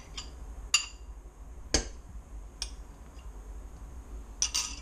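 Metal spoon clinking against a glass bowl and a small saucepan as masala is scooped and scraped into the pan. There are a few separate sharp clinks, the loudest about two seconds in, then a quick cluster near the end.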